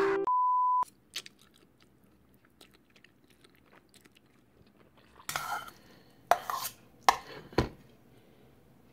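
A short steady electronic beep at the start, then faint clicks, then cold Buldak stir-fried noodles slurped loudly four times in the second half, with chewing.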